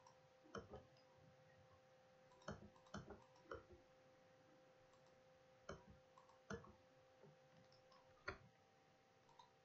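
Faint computer mouse clicks, about a dozen at irregular intervals, over a faint steady hum.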